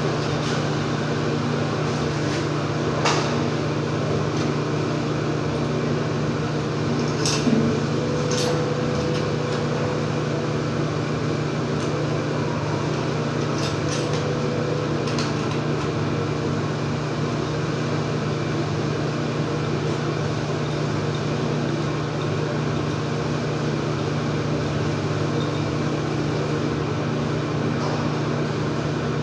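A steady mechanical hum, with a few short clicks and knocks over it.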